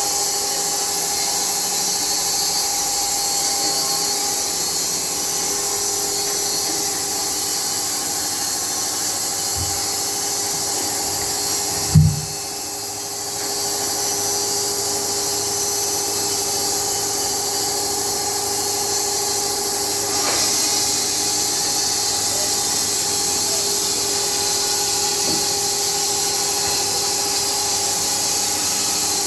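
Automatic sawmill running: a steady whine with a hiss over it. A single thump about twelve seconds in, after which the sound briefly goes quieter.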